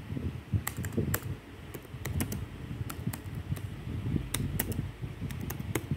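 Typing on a computer keyboard: unevenly spaced keystroke clicks, two or three a second, over a low steady rumble.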